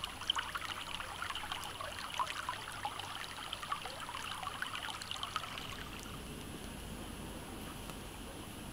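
Shallow stream babbling and trickling over rocks, full of quick little splashes for about five seconds, then settling to a softer, even rush.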